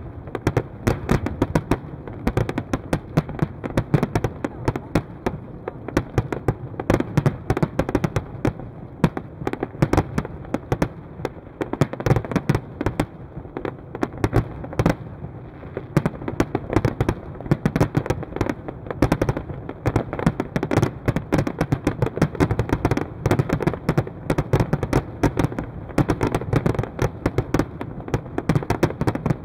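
Fireworks display: aerial shells bursting in a dense, continuous barrage of bangs, several a second, thinning briefly about fifteen seconds in.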